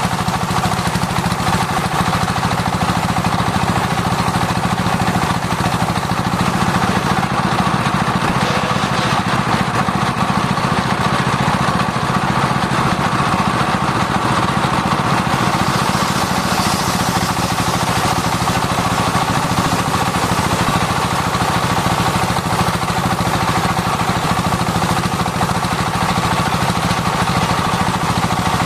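Circular sawmill blade sawing sengon wood, running steadily: a continuous machine drone with a steady whine and no pauses.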